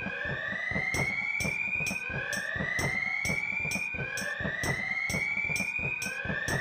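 Sci-fi alarm siren sounding, a rising whoop that repeats about every two seconds, over sharp pulses about twice a second: the alarm for an escape in progress.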